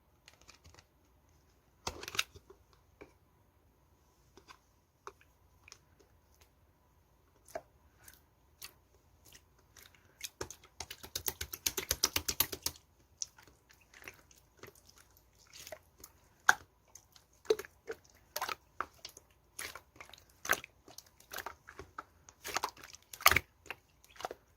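Hands squishing and poking clay-mixed slime, making sharp wet clicks and pops. A dense run of rapid crackling comes about halfway through.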